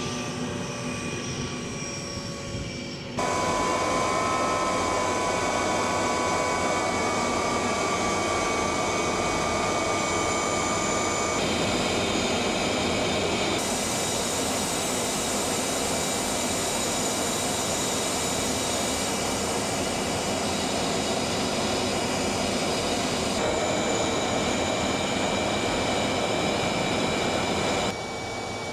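Jet aircraft engine noise: a steady rush with high whining tones, jumping abruptly in level and tone several times where shots are cut together.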